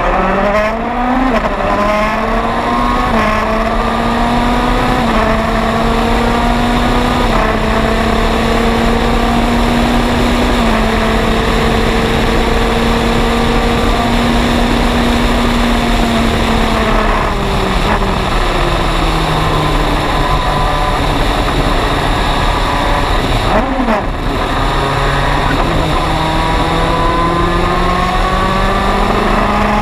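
Racing prototype engine, the MG Lola EX257's turbocharged four-cylinder, heard from on board under race load. It pulls through a few quick upshifts and holds high revs along a straight, drops in steps as the car brakes and downshifts about 16 seconds in, then climbs again from about 24 seconds as it accelerates back up through the gears, with heavy wind rush throughout.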